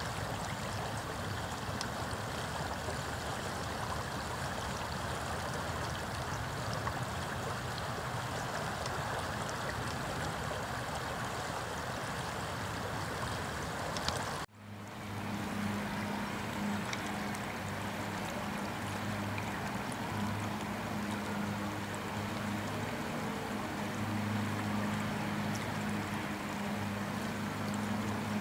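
Shallow river water running over a riffle, a steady rushing. The sound cuts out for a moment about halfway through, and after that a low steady hum runs under the water.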